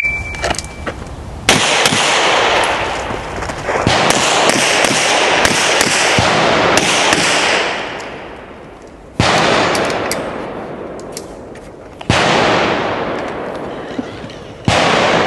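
A shot-timer beep dies away at the start. Then a string of gunshots follows, fired a few seconds apart through a timed stage: five loud shots, with fainter cracks between them, each trailing a long echo.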